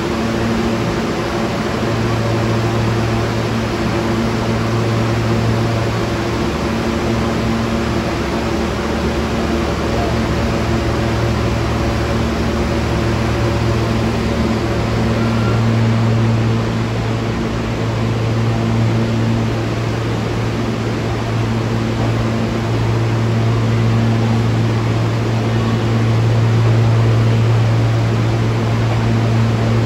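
Steady hum of a New York City subway train: a strong low hum with a couple of fainter steady tones above it over a constant hiss, rising and falling slightly in level.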